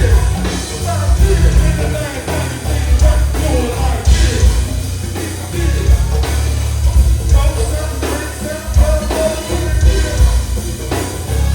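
Loud music with singing and a heavy bass line.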